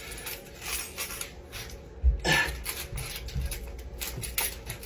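Cheese being grated by hand: a series of irregular rasping scrapes of cheese against a grater, the strongest about two seconds in.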